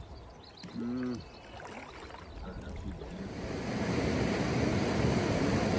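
Fast, shallow river water rushing over rocks and riffles. It swells in about three seconds in and holds steady and loud. Before it, a quieter stretch with one short vocal sound about a second in.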